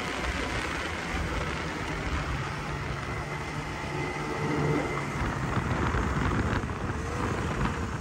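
Snowmobile engine running steadily while riding, under a continuous rushing noise.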